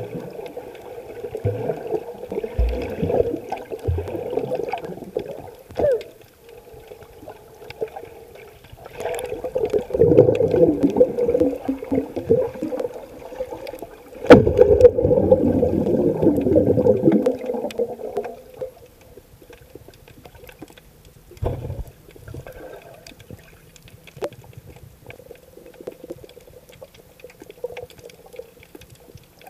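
Muffled underwater water noise picked up by a submerged camera: sloshing and gurgling that swells into two louder surges in the middle, then settles to a low murmur.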